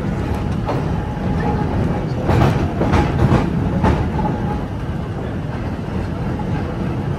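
Vintage tram running on rails, a steady low rumble with a few sharp clacks of the wheels over rail joints near the middle.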